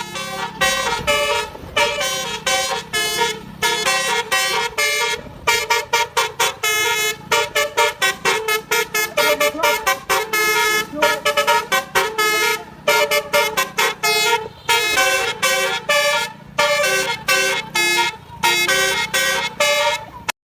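Basuri V1 telolet horn, a multi-tone electric bus horn, playing a fast melody of short musical toots that change pitch note by note, over a steady low hum. It stops abruptly just before the end.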